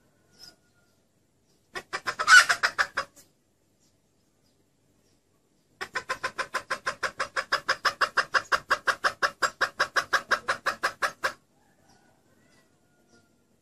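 Junglefowl hen clucking in rapid, even series, a hen call used as a lure to draw in roosters. A short run of about ten clucks comes near the start. A few seconds later a longer run of clucks follows at about seven a second for some five seconds.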